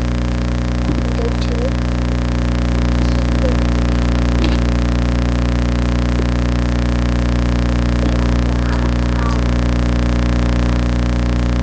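Steady electrical mains hum with many overtones, unchanging in level and loud enough to dominate the recording.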